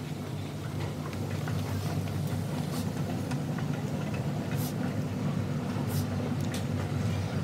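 Steady low mechanical hum of a subway station, with scattered light clicks of footsteps.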